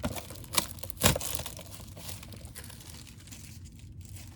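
Foil trading-card pack wrapper crinkling as it is handled, with three sharp crackles in the first second followed by softer rustling.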